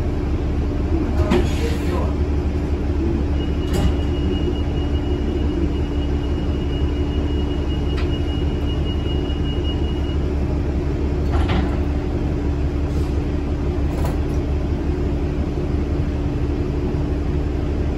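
Cabin sound of a 2008 New Flyer D40LF diesel transit bus idling while stopped: a steady low engine hum with a constant droning note under it. A few light knocks come through, and a thin high steady tone sounds from about three seconds in for roughly seven seconds.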